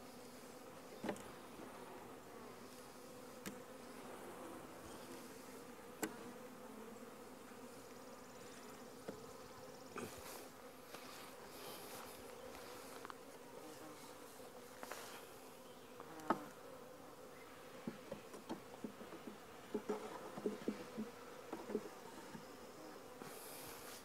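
Honey bees buzzing around open hives in a steady, faint hum. Scattered light clicks and knocks come through it, more often in the second half.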